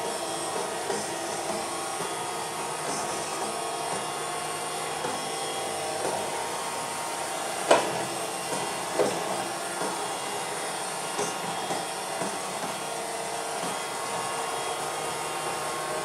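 IROVA K6S robot vacuum cleaner running: a steady motor and fan hum, with scattered clicks and ticks as it runs over paper bits and staples. The sharpest click comes about eight seconds in.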